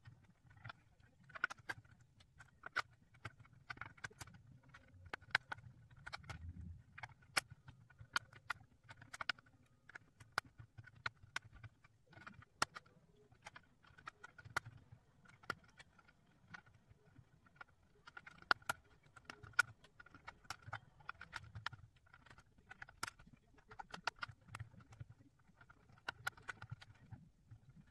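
Plastic 3D puzzle-ball pieces being pressed into place on the curved shell of a Ravensburger puzzle ball: faint, irregular light clicks and taps, several a second at times, with soft handling sounds between them.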